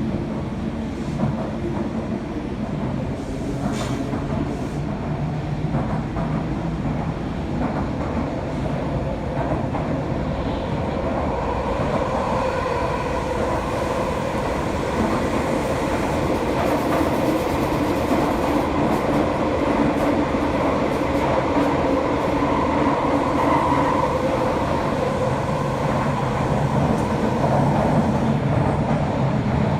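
Toei Oedo Line subway train running underground: a continuous loud rumbling roar with a whining tone that swells from about twelve seconds in and stays strong.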